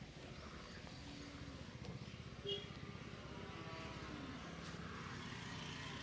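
Steady low rumble of a motor vehicle engine on the road, with a brief high chirp about two and a half seconds in.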